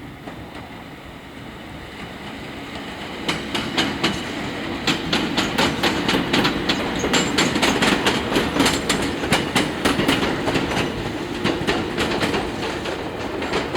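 Chichibu Railway 7800 series train pulling out, its wheels clattering over rail joints in quick groups of clicks over a steady rumble. The sound builds for the first few seconds, with the joint clicks coming in from about three seconds in.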